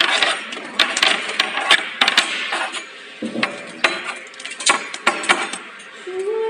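Thin aluminium channel-letter strip and plastic film being handled at a bending machine: irregular sharp metallic clicks and rattles, with crinkling in the first half.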